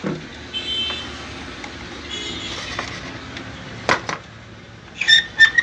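A CRT television's chassis circuit board being handled and turned over by hand: rustling and scraping of the board and its wiring, with one sharp click just before four seconds in. Three short high-pitched chirps follow about a second later.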